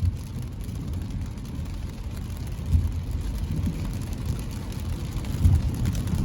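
Low, steady rumble of a car driving on a wet road, heard from inside the cabin, with two brief louder bumps, a few seconds apart.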